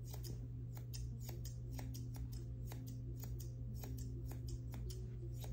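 Grooming shears snipping through a Bichon puppy's coat in quick, crisp cuts, about two or three snips a second, over a steady low hum.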